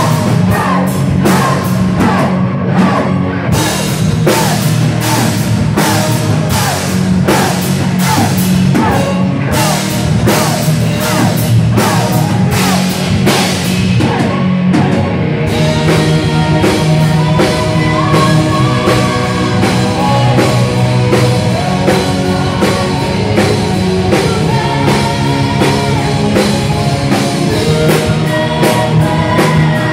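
Live power-metal band playing loud, with drum kit, electric guitar and a singer. About halfway through, the fast run of drum hits eases and held chords take over.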